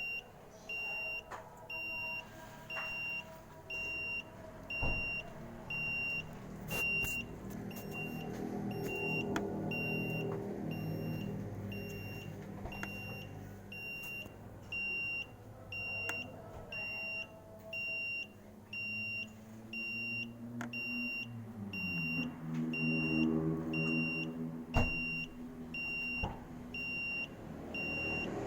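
Electronic beeper sounding a steady series of short, high-pitched beeps like a vehicle's reversing alarm, over a low hum that rises in pitch about three-quarters of the way through.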